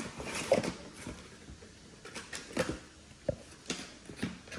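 Packaging being handled and moved about: a plastic tray and cardboard model boxes giving light rustles and about half a dozen short knocks and clicks scattered through.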